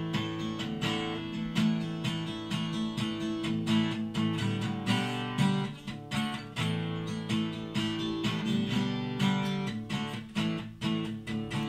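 Acoustic guitar strumming chords in a steady rhythm, with no singing over it.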